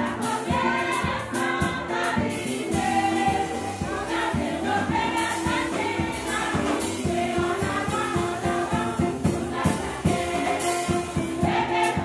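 Music with a choir of voices singing over a steady drum beat.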